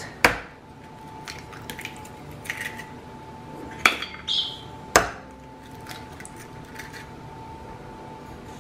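Two eggs cracked open into a bowl: three sharp cracks, one about a third of a second in and two close together around four and five seconds in.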